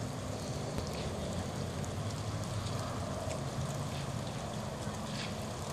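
Wind blowing steadily and buffeting the microphone with an uneven low rumble. A light rain shower falls, heard as faint scattered ticks.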